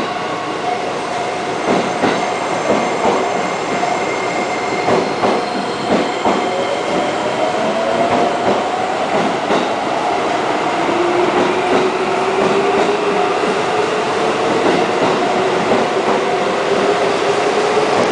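Seibu Railway electric train pulling away: wheels clack over rail joints, and the traction motors give a whine that slowly rises in pitch as it gathers speed.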